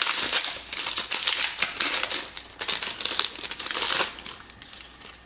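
Trading card pack wrapper being torn open and crinkled: a dense run of crackling that dies down after about four seconds.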